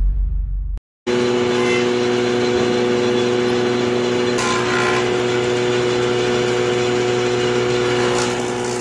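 A multi-purpose combination woodworking machine running at speed as boards are worked on it: a loud, steady machine noise with a held hum. It starts about a second in, after a music jingle cuts off, and eases off near the end.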